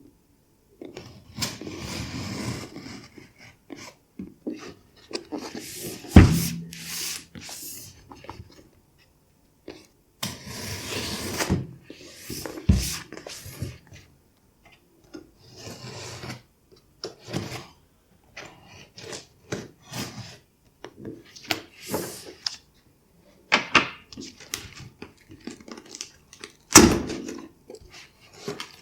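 Product packaging being handled while a table fan is unboxed: intermittent rustling and rubbing, with sharp thuds about six seconds in, about thirteen seconds in and near the end.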